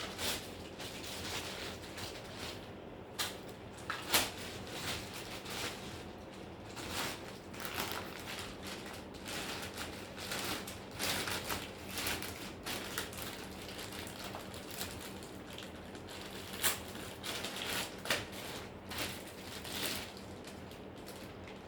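Irregular clicks, taps and knocks of hands and tools working on small parts, several sharper knocks among them, over a steady low hum.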